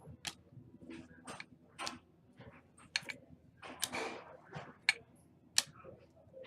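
2016 Prestige football trading cards being handled on a counter: irregular sharp clicks and snaps of card stock as cards are flipped, slid and set down, with a short rustle about four seconds in.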